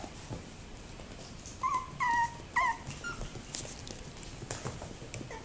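Toy poodle puppies whining: three short high-pitched cries about two seconds in, each falling slightly in pitch, followed by a few sharp clicks.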